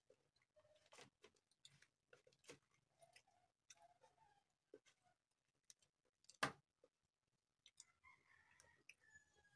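Faint clicks and taps of a metal fork and fingers against a plastic food tub and ceramic dishes during eating, irregular and scattered, with one sharper knock about two-thirds of the way through.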